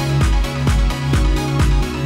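Electronic dance music with a steady, fast beat and a deep bass line.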